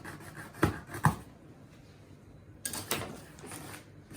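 Handling noise from unpacking: two sharp knocks close together, then a short stretch of rustling.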